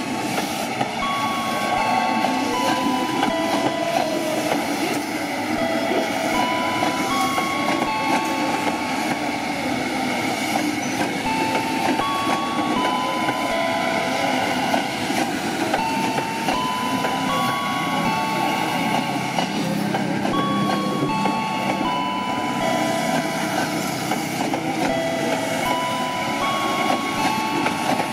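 KRL Jabodetabek electric commuter train rolling slowly round a curve. Over it a tune of clear steady notes steps up and down about once a second.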